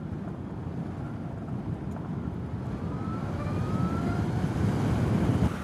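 Zero SR/F electric motorcycle on the move: wind and road noise that build steadily louder, with a faint rising whine about three seconds in, before the noise drops off near the end.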